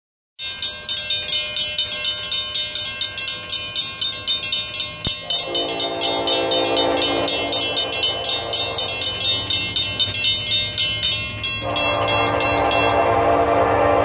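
Horn of an approaching Norfolk Southern SD70ACe diesel locomotive sounding two long blasts, the second louder as the train draws nearer. Under it, a fast high ringing repeats about five times a second and stops about a second before the end.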